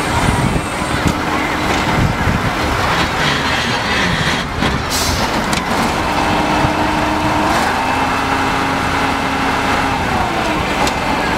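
Core drilling rig running: its motor and rotator turn the drill rod in a loud, steady mechanical drone with a constant hum, whose pitch drifts slightly a little past the middle.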